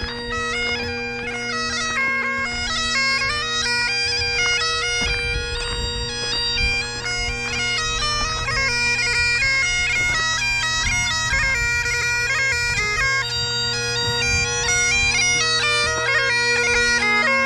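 Bagpipe music: a quick melody of stepping notes played over a steady, unbroken drone.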